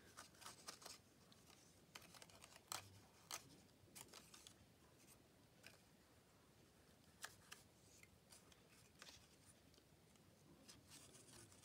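Faint, scattered light clicks and rustles of hands working paper and craft tools on a desk, irregular and a second or more apart.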